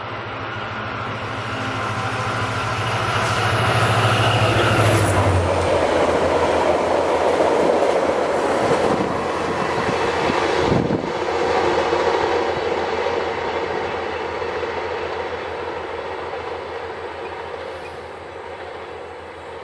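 A VIA Rail F40PH-2 diesel-electric locomotive, with its EMD 16-cylinder two-stroke engine, pulls a four-car passenger train past. The engine grows louder and drops in pitch as the locomotive passes about five seconds in. Then the wheel-on-rail noise of the passing cars follows and fades away as the train recedes.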